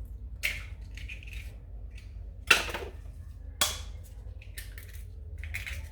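Eggs being cracked against a mixing bowl: several sharp knocks, the loudest about two and a half and three and a half seconds in.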